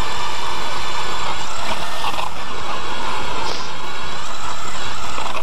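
Battery-powered StrikeMaster electric ice auger boring a hole through snow and lake ice. Its motor runs steadily with a high whine over the grinding of the auger.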